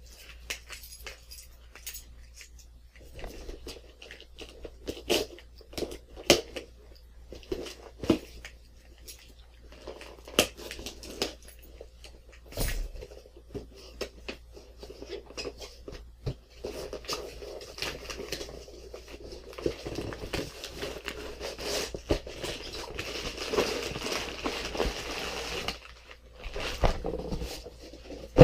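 A cardboard shipping box slit open with a key, then its packing torn and crinkled: scattered scrapes, clicks and tearing, turning to steady rustling of packing material in the second half.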